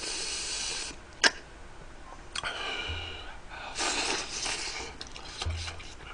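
A man's airy, hissing breaths through the mouth as he eats spicy tteokbokki and reacts to the heat, coming in several bursts, with one sharp click a little after a second in.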